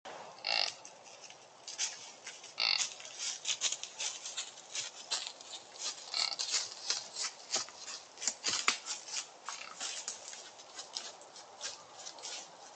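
Whitetail buck moving about in dry leaves: dense crunching and crackling steps throughout, with two short grunts about half a second and two and a half seconds in.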